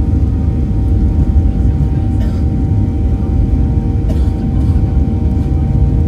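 Cabin noise of a Boeing 737-800 accelerating down the runway on its take-off roll: its CFM56 engines and the wheels make a loud, steady rumble with a few steady engine tones running through it. There are faint rattles about two and four seconds in.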